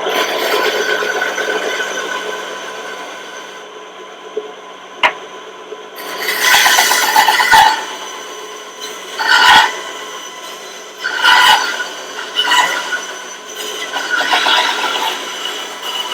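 Ryobi 9-inch bandsaw running with a steady hum while its 1/4-inch, 6-teeth-per-inch Bosch blade cuts wood in several short rasping bursts of about a second each. There is a single sharp click about five seconds in.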